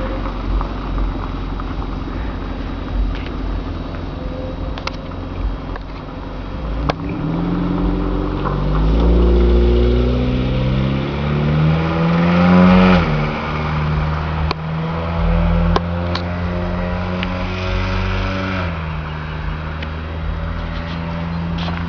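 Car engine accelerating away: its pitch climbs for several seconds, drops sharply at a gear change about 13 seconds in, then holds steady before easing down again near 19 seconds. A few light clicks are heard along the way.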